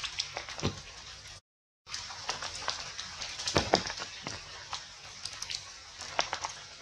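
Forest ambience: a steady high hiss of insects under many short, high squeaks and chirps that fall in pitch, typical of young macaque calls. The strongest come in a cluster about three and a half seconds in, and the sound cuts out for a moment about a second and a half in.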